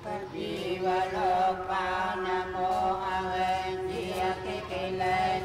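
Buddhist chanting: several voices reciting together in a steady, sustained drone of held tones.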